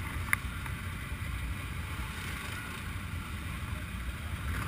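ATV engines idling: a steady low rumble with one sharp click under half a second in.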